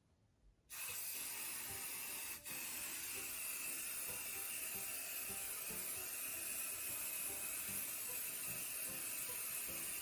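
Aerosol hair lacquer can spraying in a long, steady hiss onto hair, starting just under a second in, with a momentary break about two and a half seconds in.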